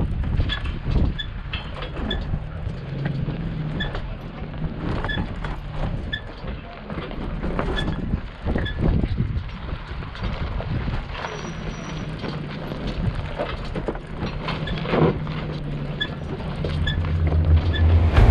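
Off-road 4x4 truck engine running while driving, with frequent short knocks and rattles.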